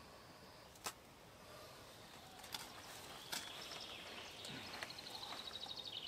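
A few sharp clicks in a quiet forest, then a songbird's rapid high trill, about ten notes a second and growing louder, starting about four and a half seconds in.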